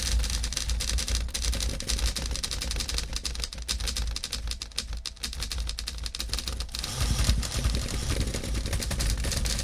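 Typewriter keys clacking in quick, irregular strokes over a steady low rumble, which grows heavier about seven seconds in.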